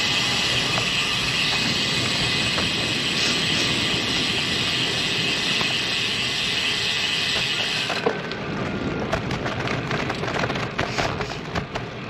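Bicycle rear-hub freewheel buzzing with rapid ratchet clicks as the bike coasts. It cuts off suddenly about two-thirds of the way through, and scattered clicks and knocks follow as the bike rolls on.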